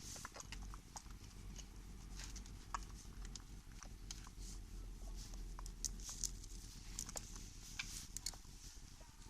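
Irregular light clicks, taps and scraping of chainsaw chain-tensioner parts being handled and worked by hand, over a steady low hum.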